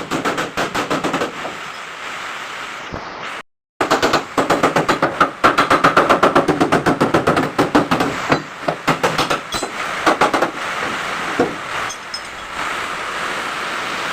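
Rapid hammering on sheet-metal bodywork, about five blows a second, broken by a moment of dead silence a few seconds in and by stretches of steadier noise.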